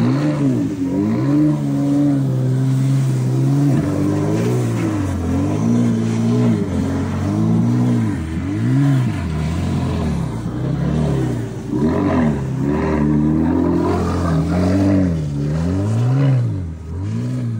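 Mercedes-Benz C-Class's M276 DE30LA twin-turbo 3.0-litre V6 engine, running steadily for about the first four seconds, then revving up and dropping back again and again, about once a second.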